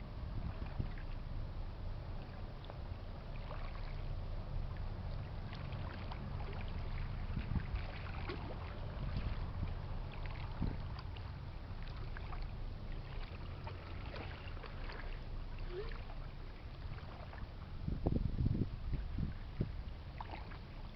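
Low, steady rumble of the freighter Presque Isle's engines as it passes on the river, with scattered faint clicks and knocks over it and a brief louder low surge near the end.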